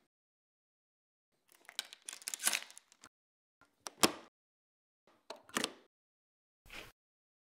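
A door chain lock being handled: the metal chain rattling and sliding in its track, with a sharp click about four seconds in and a few shorter rattles after.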